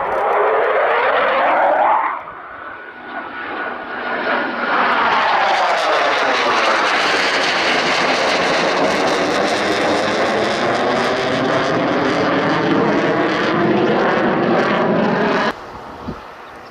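Eurofighter Typhoon's twin turbofan jet engines heard loud as the fighter passes low overhead, with a sweeping whoosh as it goes by. The sound eases briefly about two seconds in, swells again and holds, then cuts off suddenly near the end.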